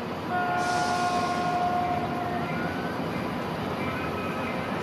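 Air horn on an approaching EMD F40PH diesel locomotive, one multi-note chord held for about two seconds, sounding over the steady rumble of the train.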